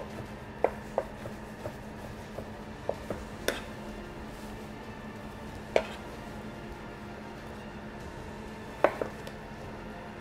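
Chef's knife dicing tomato on a plastic cutting board: irregular light taps of the blade against the board, with sharper knocks about three and a half, six and nine seconds in.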